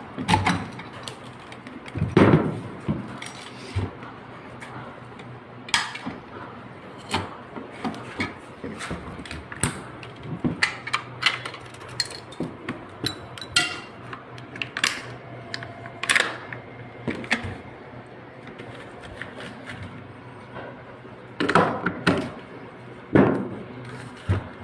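Parts of an airsoft SVD Dragunov replica rifle being handled and taken apart: irregular clicks, clacks and knocks, a few of them louder, spread through.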